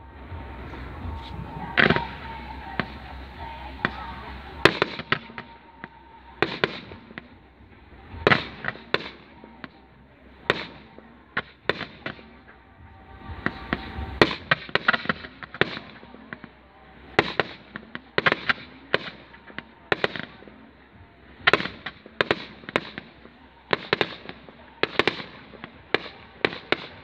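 Fireworks display: an irregular run of sharp bangs and crackles from bursting shells, some coming in quick clusters, with the loudest about two, five and fourteen seconds in.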